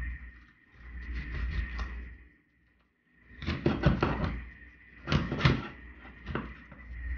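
Meat cleaver chopping through a croaker's head on a wooden cutting board: knocks of the blade striking bone and board, with two loud runs of several quick strokes about halfway through and lighter blows earlier and near the end.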